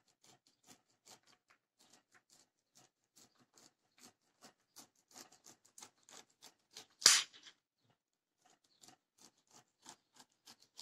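A small knife slicing kernels off an ear of fresh green corn against a glass cutting board: a run of short crisp cuts, about three a second. One much louder sharp knock comes about seven seconds in, followed by a brief pause before the cutting resumes.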